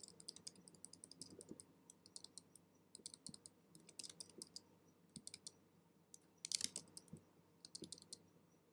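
Faint computer keyboard clicks in short, scattered clusters, with a louder cluster about six and a half seconds in.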